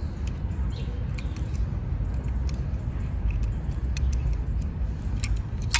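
Light, scattered clicks from a small die-cast toy car being handled, over a steady low rumble.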